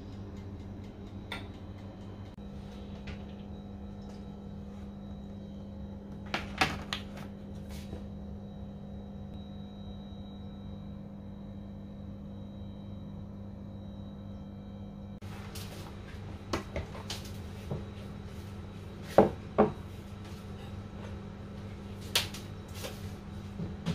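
Kitchen handling sounds: a few sharp knocks and clunks of pans and dishware being set down and moved, over a steady low hum. The knocks come once at first, then in a cluster in the second half, the loudest two close together a little past the middle of that stretch.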